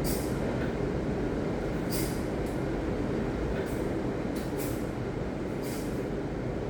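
Ocean surf: a steady low rush of breaking waves, with short bright hisses every second or so.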